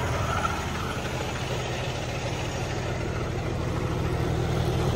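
Semi truck's diesel engine idling steadily while it runs a parked diesel particulate filter regeneration, getting a little louder near the end.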